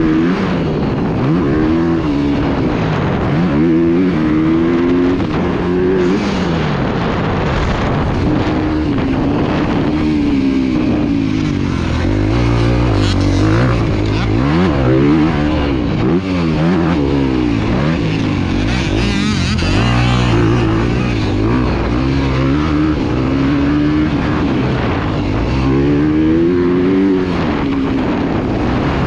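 Dirt bike engine being ridden hard around a motocross track, its pitch climbing and dropping over and over as the throttle is opened and closed through the turns and jumps.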